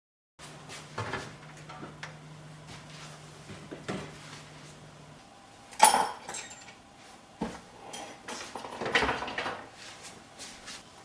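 Dishes and kitchen containers being handled and set down: scattered clinks and clacks, the sharpest about six seconds in and a cluster around nine seconds, over a low steady hum that stops about five seconds in.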